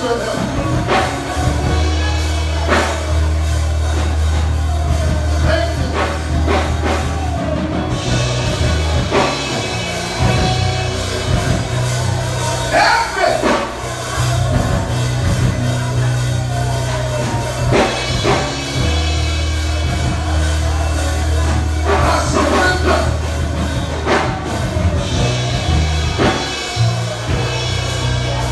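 Live church worship music with a drum kit, bass and held keyboard chords, with voices singing or praying under it.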